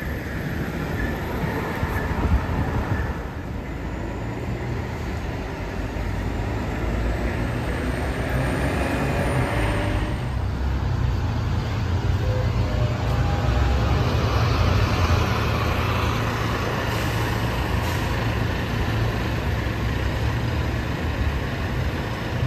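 City buses and other road traffic passing: a steady low engine rumble with tyre and road noise, swelling around the middle as a bus passes close by.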